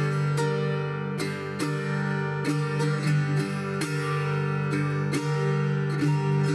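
Solo viola caipira, the ten-string Brazilian folk guitar, played fingerpicked in Rio Abaixo tuning: a run of plucked notes ringing over a steady low note.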